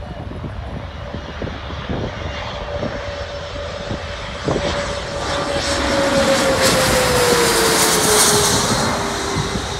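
United CRJ200 regional jet's twin GE CF34 turbofans on landing approach, getting louder as it passes low overhead. The engines' whine falls in pitch as the jet goes by, with a rush of hiss at the loudest point. Wind rumbles on the microphone underneath.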